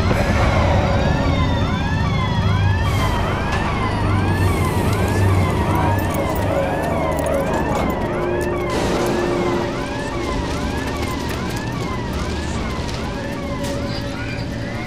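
Futuristic police siren with a quick repeating warble, about two sweeps a second, over a low hum that fades after about six seconds. Brief rushing noises come a few times in the first ten seconds.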